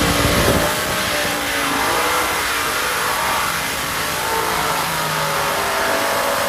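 Supercharged Hemi engines of a light modified pulling tractor running near idle, their pitch wavering unevenly up and down, with a short louder burst about half a second in.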